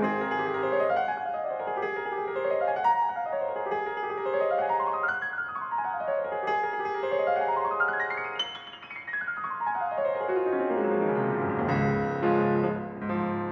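Steinway concert grand piano played solo in fast arpeggios that sweep up and down the keyboard in four waves, each climbing higher than the last. The highest peaks about eight seconds in; near the end the playing turns to full, lower chords.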